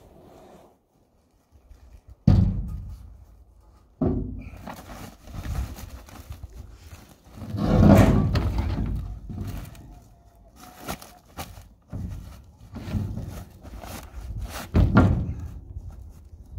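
A string of heavy thunks and knocks with quieter gaps between, the loudest and longest about halfway through: a heavy half-inch steel quick-attach plate being shifted and set down.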